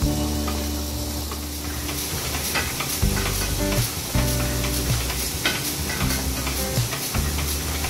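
Chandler & Price platen letterpress running, its rubber inking rollers rolling over the tacky ink disc with a crackling, sizzling sound and scattered clicks from the mechanism. Background music with sustained low notes plays under it.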